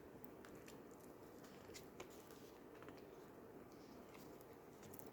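Near silence: room tone with a few faint, scattered clicks from oracle cards being handled.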